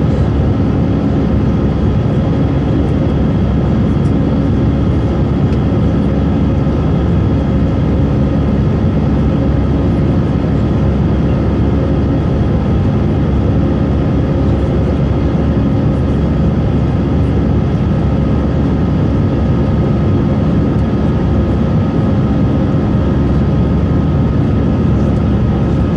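Cabin noise of an Airbus A320 climbing after takeoff, heard from a seat over the wing: the jet engines and airflow make a steady, even roar with a few constant humming tones running through it.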